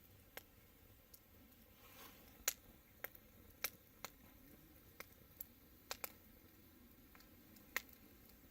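Fire crackling: sharp, irregular pops and snaps over a faint steady background, the loudest about two and a half seconds in and another near the end.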